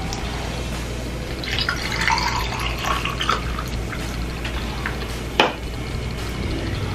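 Carbonated orange soda poured from an aluminium can into a glass, splashing and fizzing. A single sharp knock about five seconds in.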